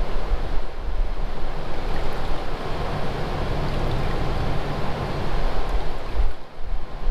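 Water-filled Sundown Audio subwoofer playing a 20 Hz test tone at raised volume, with the water churning in its cone under plastic wrap. It makes a steady low rumble with a noisy rushing layer on top, which dips briefly about six and a half seconds in.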